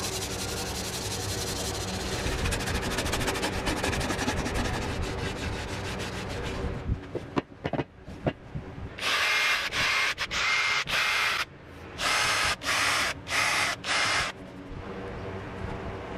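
Sandpaper rubbed back and forth by hand over a wooden speaker enclosure, a steady scratchy hiss. About seven seconds in it stops, a few knocks follow, then four short bursts of bright hiss of a second or two each.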